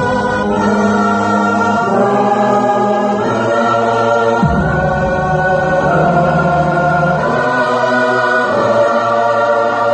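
Music: a choir-like chorale of held vocal chords over a low sustained note, the chords shifting every two or three seconds, with no beat.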